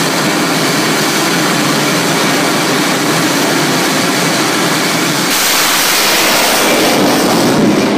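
Jet dragster's turbine engine running steadily at the start line. About five seconds in, it jumps suddenly to a harsher, hissing blast as the car goes to full thrust and launches, and it grows louder toward the end.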